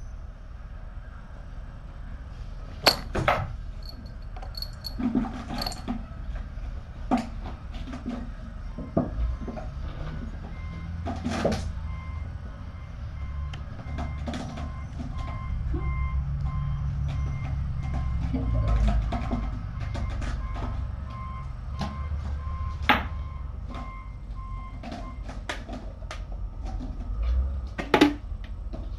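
Scattered knocks, clicks and rattles of kittens playing with toys on a carpeted floor, a few of them sharp and loud, the last as a kitten comes up close. Behind them runs a low rumble, and through the middle a repeating electronic beep like a vehicle's reversing alarm.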